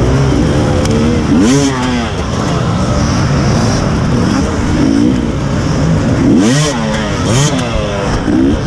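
Enduro dirt-bike engines running, with the throttle blipped several times so the pitch sweeps up and falls back. The hardest revs come about a second and a half in and twice more near the end.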